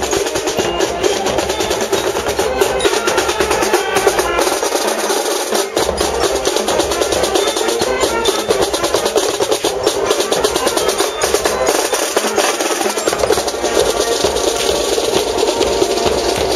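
Marching band warming up, its snare and bass drums playing a steady beat with other instruments sounding underneath.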